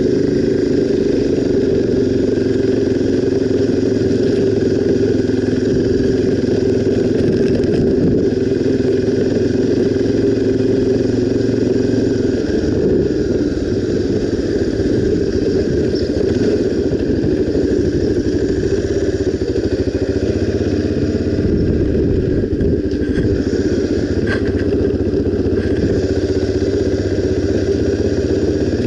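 Honda XR 250 Tornado's single-cylinder four-stroke engine running steadily while riding, its note shifting a little about twelve seconds in.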